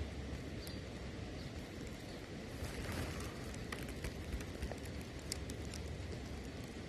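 Over a low steady rumble, a run of light clicks and taps about three to five seconds in, from handling a spinning rod and reel.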